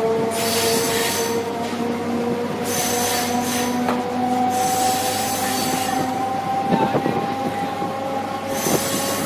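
Traction motors of a conventional Indian MEMU electric multiple unit, DC brushed motors on a 25 kV AC supply, whining as the train accelerates, the whine slowly rising in pitch. Bursts of hiss come and go over it, with a couple of sharp knocks from the wheels on the track.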